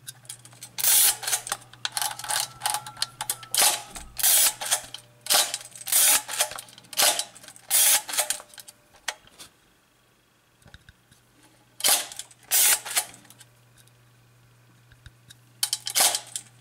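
Kiev 6C medium-format SLR body being worked by hand: a run of sharp mechanical clacks, about two a second, for several seconds, then a pause, two more clacks, and a few more near the end.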